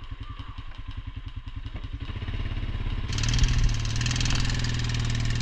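A vehicle engine running with an even, pulsing beat, getting louder and rising from about two seconds in as it revs up. About three seconds in, a loud steady hiss joins it.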